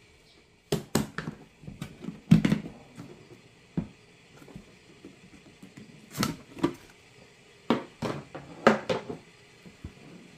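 Hard plastic knocks and clatters as a plastic storage container and its lid are handled, in short clusters with gaps between, the loudest about two seconds in.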